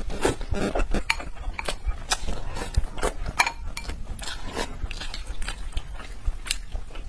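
Close-miked eating of red braised pork belly: wet chewing and mouth smacking, with utensils clicking against a dish. The clicks come irregularly, several a second.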